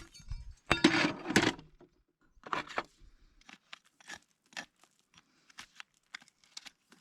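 Farrier's tools working on a horse's hoof: a louder scraping burst about a second in, then a run of short scrapes and clicks.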